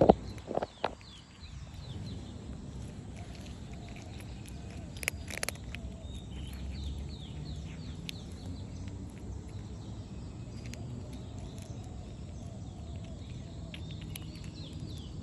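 Small birds chirping in many short, quick downward-sliding notes over a steady low outdoor rumble, with a few sharp clicks near the start and again about five seconds in.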